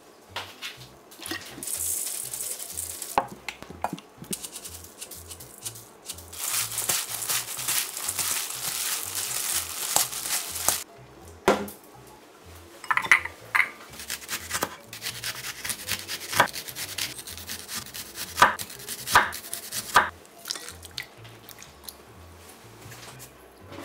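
Shredded green onions tossed and mixed in a stainless steel bowl: crisp rustling in two long stretches, then a run of sharp clinks and knocks of a utensil against the bowl.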